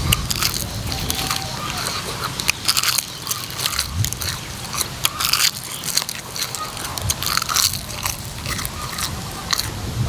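Close-miked eating: a person biting and chewing food, with irregular crunches and wet crackling clicks.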